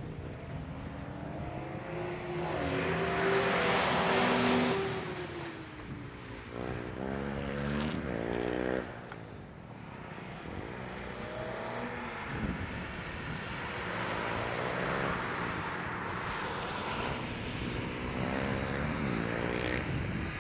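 Hyundai Coupe sports car being driven hard around a race track, its engine revving up and dropping back repeatedly through the corners and gear changes. It is loudest a few seconds in, with a hissing rush, then a run of quick rev climbs follows.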